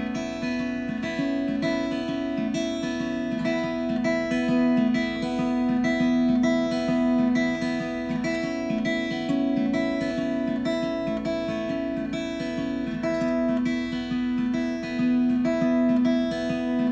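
Background music: an acoustic guitar plucking and strumming a steady, regular pattern of notes.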